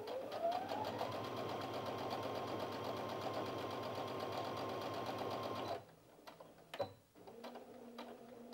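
Brother Innov-is F420 computerised sewing machine sewing a straight stitch through thin denim with a jeans needle. The motor whine rises over the first second as it gets up to speed, then it runs steadily with a fast, even needle rhythm and stops suddenly about six seconds in. A click follows about a second later.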